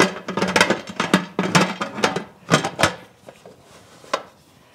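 Aluminium lid of a Presto 23-quart pressure canner clattering and scraping on the pot's rim as it is set on and twisted to lock, a quick run of sharp metal clicks over the first three seconds and one more click near the end.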